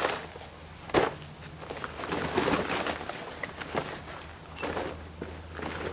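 PU-coated nylon hull of an Alpacka Curiyak packraft rustling and crinkling as it is unrolled and shaken out, with a single thump about a second in and scattered small clicks and crunches.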